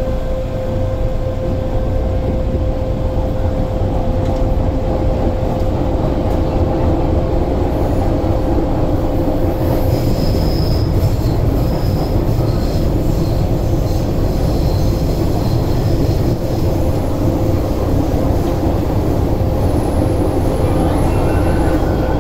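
Cabin noise of an MTR M-Train on the Disneyland Resort Line in motion: a steady low rumble of wheels and running gear, with a steady hum that fades over the first half. Faint high wheel squeals come in about halfway through and again near the end.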